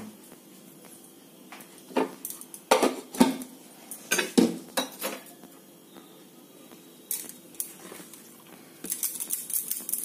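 Metal spatula clinking and knocking as it is handled and set down against the wooden rolling board and the stove edge. Near the end, a quick run of pats as a dough ball is pressed flat by hand on the wooden board for tandoori roti.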